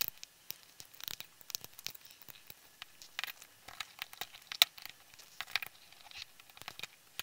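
Hobby knife scraping and snipping leftover support material off a silver PLA 3D print: a string of short, irregular scratchy clicks, the sharpest about four and a half seconds in.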